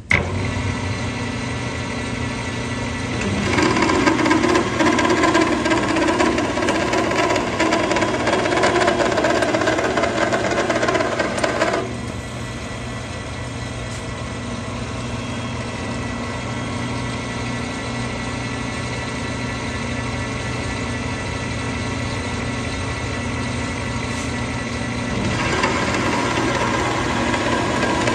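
Precision Matthews metal lathe running under power while single-point cutting a 5-threads-per-inch Acme thread, a steady hum of motor and gearing. It grows louder, with a cutting sound, from about three seconds in until a sudden drop about twelve seconds in, and it grows louder again near the end.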